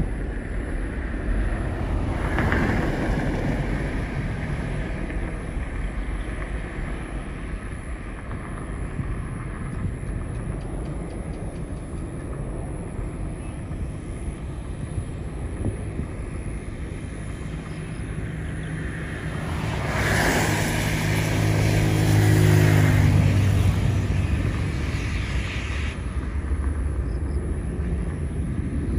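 Jet airliner taking off, its engines heard from afar as a steady rumble. The noise swells to its loudest about two-thirds of the way through, with a whine that falls in pitch.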